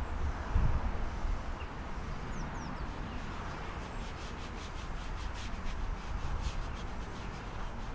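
Hands rubbing and smearing paint on a stretched canvas: from about three seconds in, a run of quick scrubbing strokes, about four a second, over a steady low rumble.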